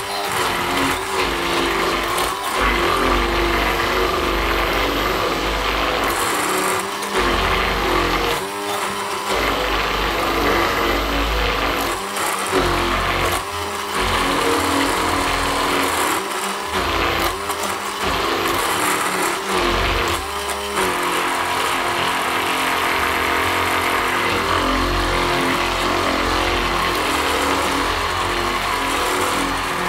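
Hand-held stick blender running in a plastic bowl, beating melted butter with sugar until foamy, with several short breaks in its sound during the first twenty seconds.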